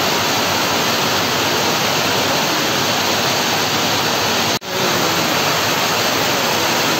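Heavy rain falling, a steady loud hiss, with a sudden brief break about two-thirds of the way through before it carries on.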